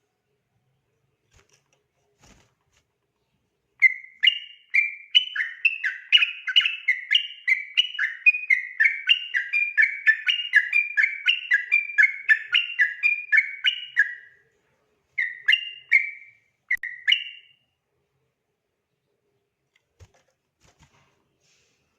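Yellow-vented bulbul (trucukan) singing a fast, continuous run of whistled notes, about three a second, for about ten seconds. It starts a few seconds in, then gives three short phrases and stops.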